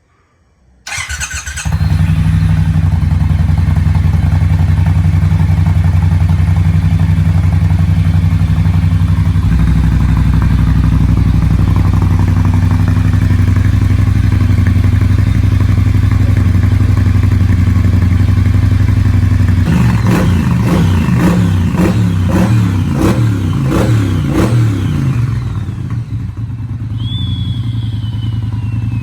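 2020 Triumph Bobber's 1200 cc parallel-twin, on its stock exhaust, cold-started: a brief crank, then it catches and idles steadily. About two-thirds of the way through it is revved several times before settling back to idle. A short falling squeal comes near the end.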